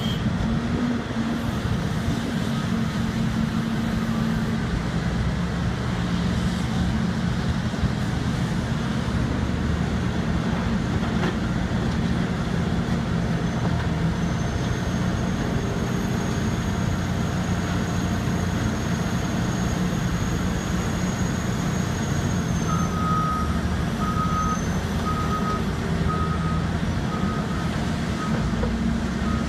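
Heavy diesel engines of a Terex RH170 hydraulic mining shovel and a Hitachi haul truck running steadily under load. About three quarters of the way through, a reversing alarm starts beeping, a little over one beep a second.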